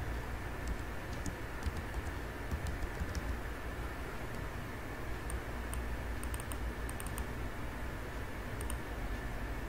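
Computer keyboard typing, scattered keystrokes over the first few seconds, then a few pairs of mouse clicks later on, over a steady low background hum.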